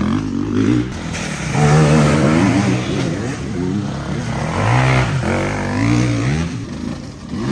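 Off-road enduro motorcycle engines revving, the pitch rising and falling again and again as the bikes work through the course.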